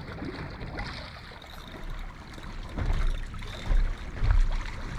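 Sea water lapping and trickling against a small boat's hull, with gusts of wind rumbling on the microphone from about halfway through.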